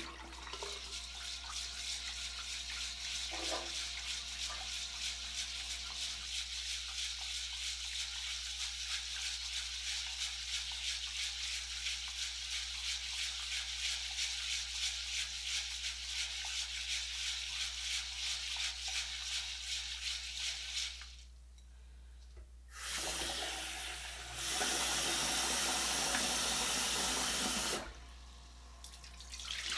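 Rice grains being swished and rubbed by hand in water inside a rice cooker's metal inner pot: a fast, even swishing. About two-thirds of the way through it stops, and a tap runs into the pot twice, a steady rush of water, to refill it for the next rinse.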